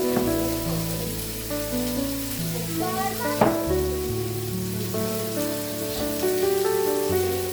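Background music with held chords and a bass line, over a steady hiss, and one sharp click about halfway through.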